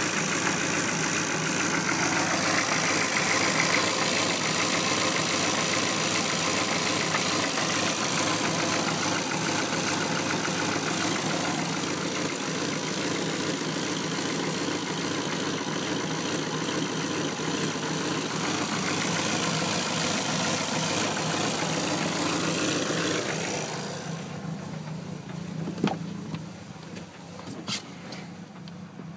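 2002 Ford SVT Focus 2.0-litre four-cylinder engine idling roughly, a steady loud running sound. The rough idle has persisted after new spark plugs and a tested battery and alternator. About three-quarters of the way through the sound drops sharply, and two sharp clicks follow.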